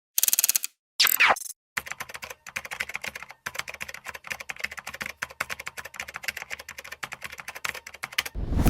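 Computer keyboard typing sound effect: about six seconds of fast, irregular key clicks. It is preceded by a brief burst of rapid clicks and a quick falling sweep, and a low whoosh begins near the end.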